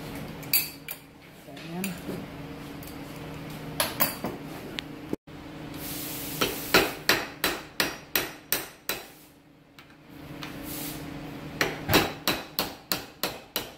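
Sharp metal clicks and knocks from hands working the steel gang punch's top adjusters. A few come near the start, then two quick runs of about eight to ten at roughly four a second.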